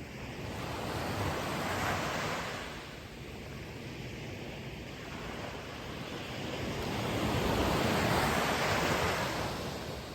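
Ocean waves breaking and washing on the shore, two surges swelling and falling away, the louder one near the end.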